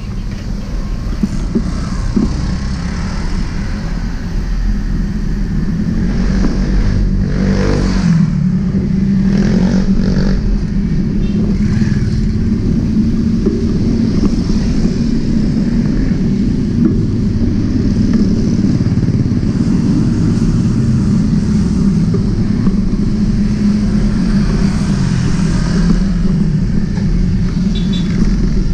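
Steady low rumble of a bicycle's tyres and wind on the bike-mounted microphone, with motorcycle engines passing close by; one engine rises and falls in pitch about seven to ten seconds in.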